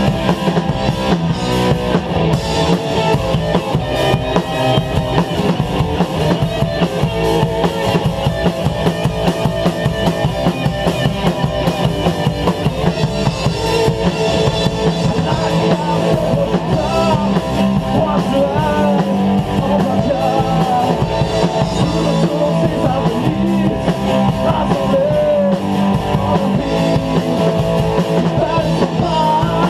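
Rock band playing live: drum kit and electric guitars, loud and steady, over a fast, even drum beat.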